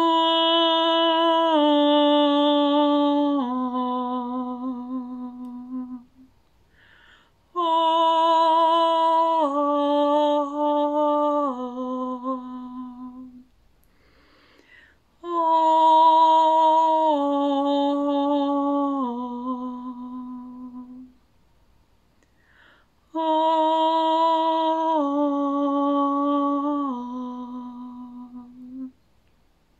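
A woman's wordless singing in sustained tones: four slow phrases, each stepping down over three held notes, with a breath between phrases.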